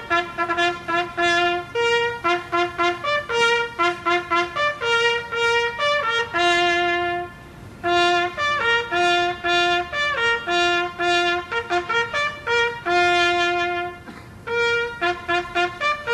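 Trumpets playing a fanfare of quick repeated short notes, phrases ending on a long held note, with brief breaks about seven and fourteen seconds in.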